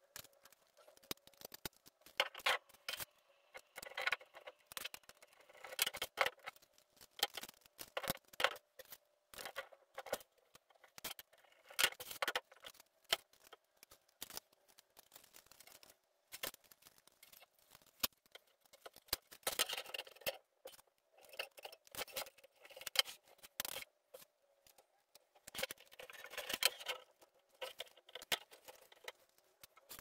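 Steel bicycle spokes clicking and rattling against each other, the hub flange and the rim as a wheel is laced by hand, with spoke nipples being fitted; the clicks are light, irregular and come in short clusters.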